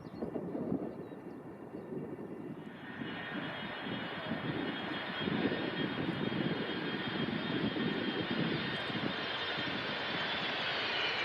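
Boeing 747SP's jet engines running: a rough low rumble, with a high turbofan whine coming in about two and a half seconds in, after which the sound grows steadily louder.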